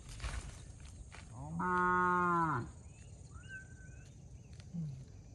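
A cow moos once, a single call about a second long near the middle that swells and falls away. Faint bird chirps follow, over light scraping and clicks of digging in dry soil.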